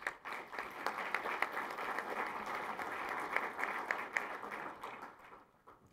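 Audience applauding at the close of a talk, a dense patter of many hands clapping that thins out and fades about five seconds in.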